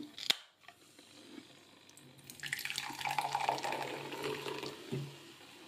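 Carbonated soda poured from a can into a glass: a fizzing splash that starts about two and a half seconds in and runs for roughly two seconds. A short sharp click comes just after the start.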